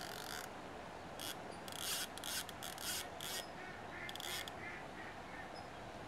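J W Young centrepin reel's ratchet clicking in a string of short rasping bursts, stopping about four and a half seconds in, as a carp pulls line off the reel in jerks: the start of a run.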